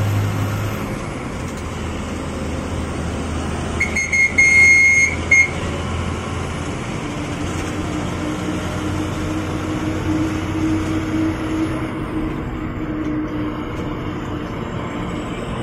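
Bus engine and road noise heard from the driver's cabin while the bus is under way, with a high-pitched horn sounding for about a second and a half about four seconds in.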